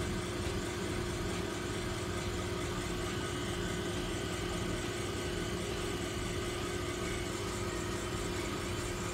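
A steady mechanical hum with one constant tone, unchanging in level.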